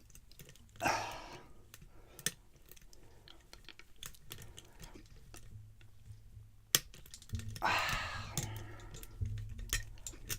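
Lock pick and tension wrench working in the keyway of a Trimax stainless steel disc padlock: scattered small metal clicks, with a brief scrape about a second in and a longer scrape from about seven and a half to eight and a half seconds in.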